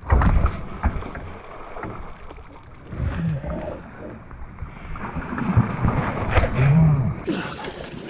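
A pike thrashing and splashing at the water surface as it is netted beside the boat, loudest in the first half second, with further rough splashing and rustling of the net later on.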